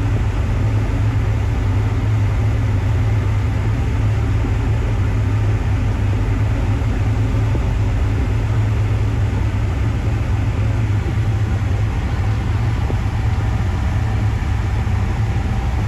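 Motor yacht's engines running steadily under way, a continuous low drone with a rushing noise over it.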